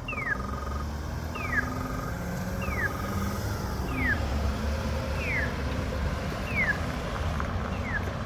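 Polara EN4 accessible pedestrian push button sounding its walk indication: a short falling electronic chirp repeated about once a second, with a brief buzzy tone alongside the first few chirps.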